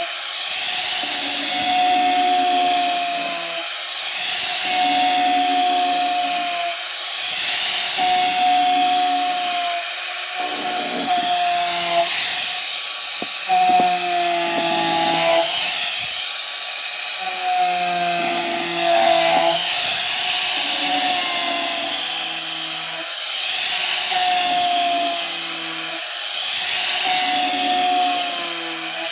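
Angle grinder with a sandpaper disc sanding down a wood surface. A steady motor whine and gritty abrasive hiss swell and dip about every three seconds as the disc is worked back and forth.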